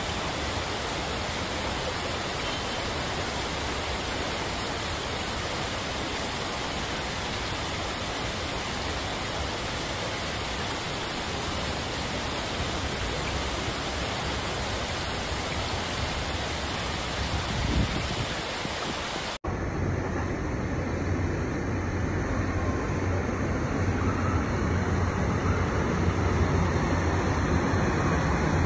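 Fast-flowing floodwater rushing over a kerb in a steady, even rush. About two-thirds of the way in it cuts off sharply, giving way to a duller rush with a steady low hum: a heavy truck driving through deep floodwater and pushing a wake.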